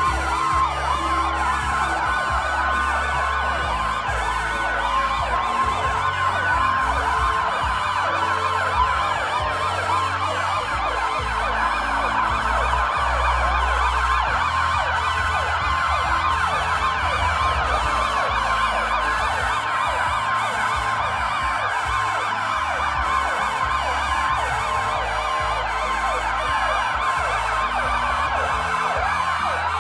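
Many emergency-vehicle sirens wailing at once, sounded together in a farewell salute. Their rising and falling glides overlap in a dense tangle over a couple of steady tones and a low rumble.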